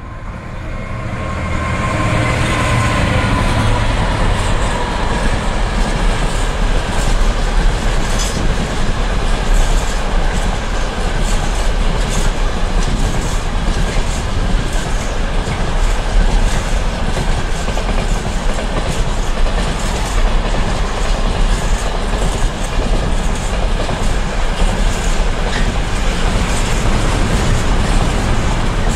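Container freight train passing close by: the locomotive's tones sweep past and fade in the first few seconds, then a long steady rumble of container wagons with repeated clicking of wheels over the rail joints.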